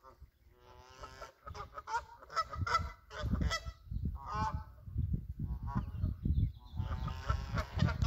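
Birds calling in loud, repeated honking calls, several overlapping, starting about half a second in and continuing throughout, over a low wind rumble on the microphone.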